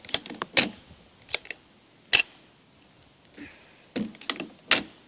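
CO2-powered paintball marker firing, about ten sharp pops in quick, uneven groups with a pause of nearly two seconds midway.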